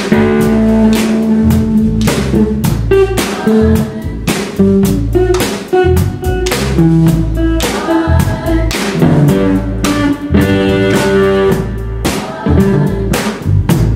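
Live rock band jamming: a guitar playing a lead over steady drum kit beats, crashing cymbals and bass, with backing singers' voices.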